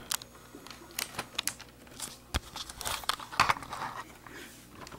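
Scattered small clicks and knocks of a laptop's plastic case and display hinges being handled as the display is worked off the base, with one sharper knock a little over two seconds in.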